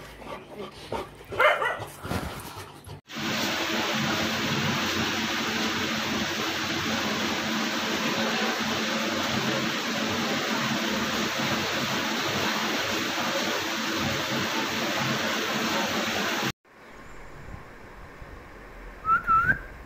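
Saint Bernard puppies whimpering and yipping in short cries. A loud steady hiss-like noise begins about three seconds in and cuts off suddenly at about sixteen seconds. One short rising whine comes near the end.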